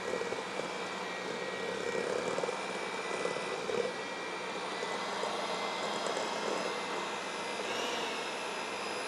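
Hamilton Beach electric hand mixer running steadily, its beaters creaming soft butter and powdered sugar in a stainless steel bowl, with a steady motor whine.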